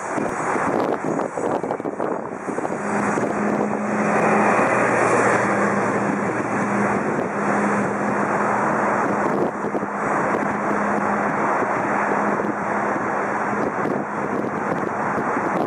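Shinkansen train going by: a continuous rushing noise that grows louder about four seconds in, with a steady low hum underneath through most of it.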